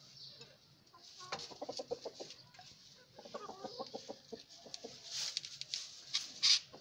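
Chickens clucking in two quick runs of rapid low clucks, followed by a burst of sharp scratchy rustling near the end, which is the loudest sound.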